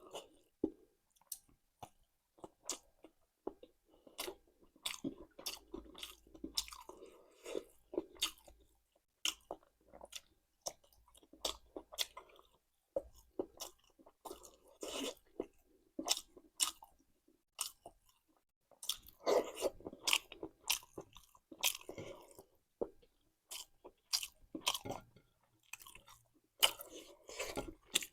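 Close-miked chewing and biting of a Nepali meal of rice, vegetable curry, boiled pork sausage and raw salad: many short, sharp wet mouth clicks at an irregular pace, with busier stretches of chewing now and then.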